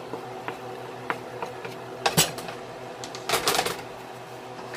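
Mussel shells clattering against each other and the stainless steel pan as they are stirred with a wooden spoon: a few light clicks, a sharp knock about two seconds in and a quick burst of clatter just after three seconds, over a steady hum.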